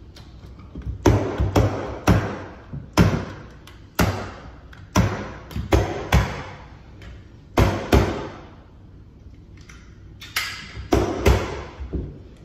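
Carpet-fitting tools striking and fastening carpet on a stair: a run of sharp knocks and clacks, about one a second and sometimes in quick pairs, with a pause of about two seconds past the middle.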